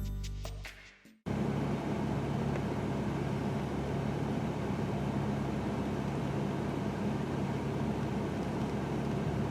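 Background music fading out in the first second, then a steady car drone: an engine's constant low hum under road noise, as from a car driving at an even speed.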